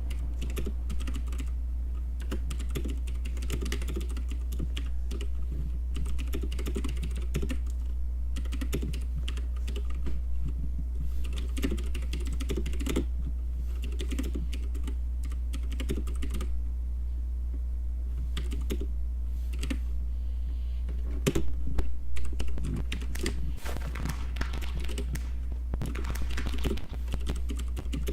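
Typing on a computer keyboard: a steady run of quick key clicks, with a louder flurry a little past the middle. A steady low hum runs underneath.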